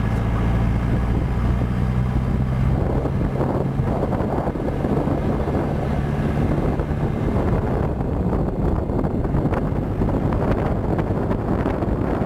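Jeep engine running steadily while driving across the sand, then rough wind buffeting the microphone takes over from about three seconds in as the engine sound fades.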